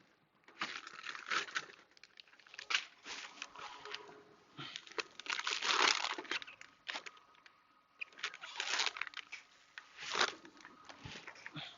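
Plastic packaging crinkling and rustling in irregular bursts as it is handled, loudest about halfway through.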